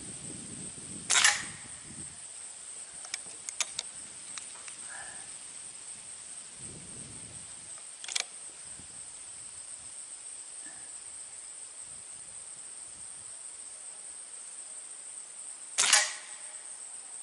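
Two shots from a .177 Diana Trail Scout CO2 air rifle, each a sharp pop, one about a second in and one near the end, with a fainter crack about halfway between. Insects buzz steadily in the background.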